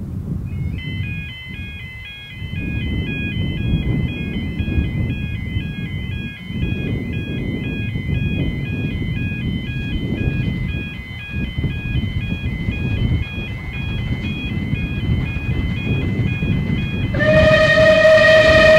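An electronic warning alarm sounds on and on, switching back and forth between two high tones, over a low rumble of wind and the approaching steam train. About a second and a half before the end, the locomotive, Bulleid Rebuilt West Country 4-6-2 No. 34028, gives one loud blast on its steam whistle.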